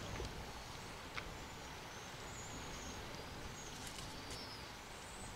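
Faint outdoor ambience: a steady low rumble of wind, with a few faint high chirps and small clicks.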